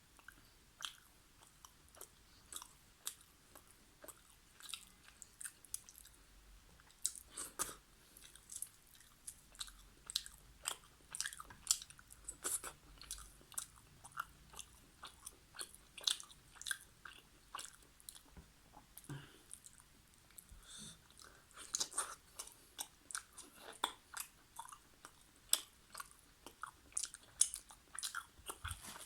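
Close-miked, wet chewing of chicken karahi with naan, with many quick, irregular mouth clicks and smacks.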